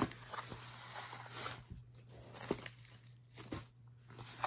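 Hands handling a mailing box and jewelry on a table: faint rustling with a few light clicks, the sharpest about two and a half seconds in and just before the end, over a steady low hum.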